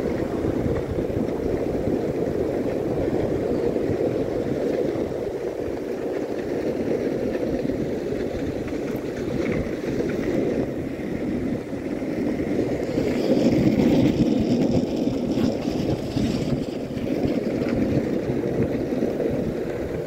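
Skateboard wheels rolling on an asphalt path: a steady rumble, louder for a few seconds a little past the middle.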